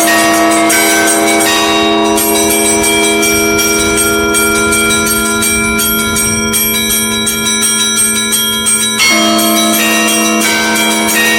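Russian Orthodox church bells pealing: several bells struck in quick succession, the smaller ones in a rapid pattern over a deeper bell's sustained ringing tone.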